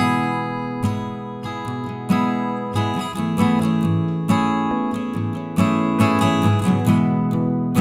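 Background music of a strummed acoustic guitar.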